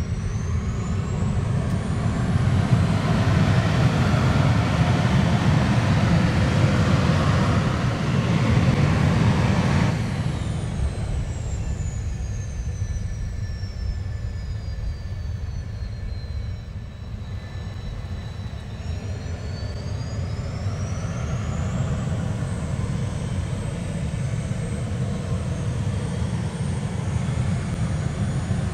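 Jet aircraft engines running on an airfield: a loud, steady jet roar for the first ten seconds that then drops off suddenly. Over it, a high turbine whine falls in pitch, holds, and rises again.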